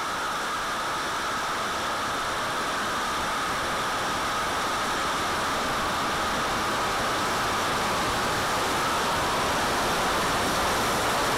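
Twin JetCat P120 gas turbines and rushing air heard from a camera on the nose of a large RC jet as it rolls down the runway: a steady rushing hiss with a faint high tone, growing slowly louder.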